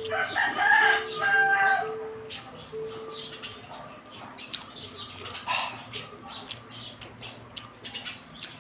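Birds calling in the first two seconds or so, a steady on-and-off low call and two higher pitched calls, then a run of short sharp clicks from chewing and mouth sounds as boiled banana heart is eaten by hand.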